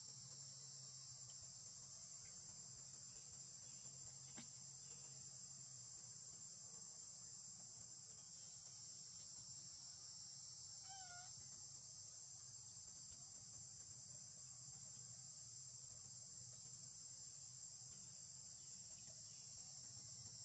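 Faint, steady, high-pitched insect chorus that never lets up. About eleven seconds in, one short wavering call sounds over it.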